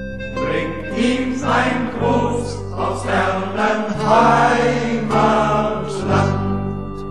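A German folk song (Heimatlied) sung by a choir over instrumental backing with sustained bass notes.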